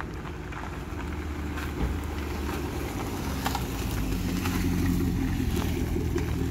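Chevrolet Camaro's engine running as the car drives slowly past, growing louder as it comes close, with tyres crackling over gravel.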